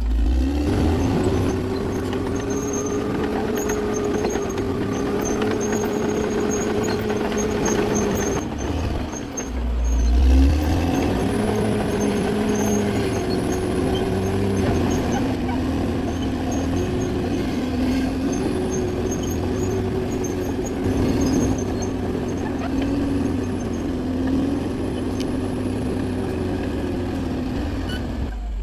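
Bulldozer engine running under changing load, its pitch rising and falling as it works. There is a brief break about nine seconds in, followed by a low thump.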